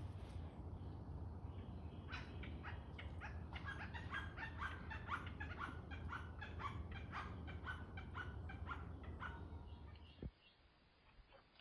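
Backyard bird giving a fast run of short, repeated calls, about three or four a second, over a steady low hum; the calls stop about nine seconds in.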